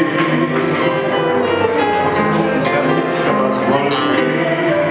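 Live tango: a male singer with instrumental accompaniment, a continuous passage of held, pitched notes.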